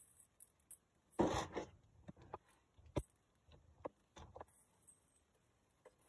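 Handling noises while rummaging through the fan's box and parts: a short rustle about a second in, then scattered clicks and light knocks.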